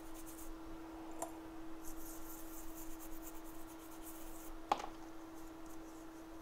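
Faint scratchy scrubbing, typical of cleaning the surface of a phone logic board's CPU, in two stretches over a steady electrical hum, with two light clicks, the louder one past the middle.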